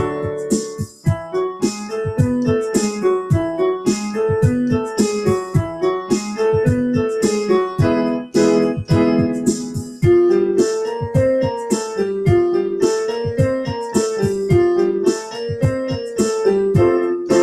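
Portable electronic keyboard on a piano voice, both hands together playing five-note major finger patterns that step up and down. A built-in rock drum accompaniment runs under it at a brisk cut-time tempo.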